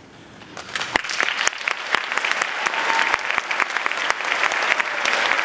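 Audience applauding: the clapping breaks out about half a second in, swells over the next second and stays loud and dense.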